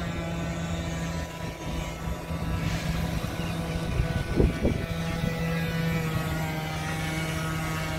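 Brushed 550 electric motor of a scratch-built wooden RC torpedo boat running at speed: a steady whine with many overtones. The whine breaks briefly about halfway through as the boat turns.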